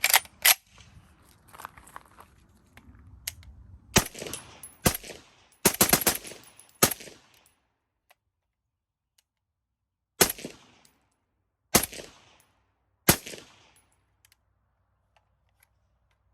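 Suppressed FN SCAR16s short-barrelled rifle firing 5.56 mm green-tip rounds through a SureFire SOCOM Mini 2 suppressor: about eleven shots, each with a short ringing tail. Two come right at the start, a quicker string follows from about four to seven seconds in, with several shots close together near six seconds, and three spaced single shots follow.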